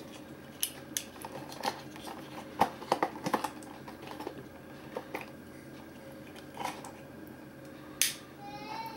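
Scattered light clicks and plastic rustles as the battery box and clear plastic packaging of a battery-powered LED garland are handled, with the sharpest click about eight seconds in.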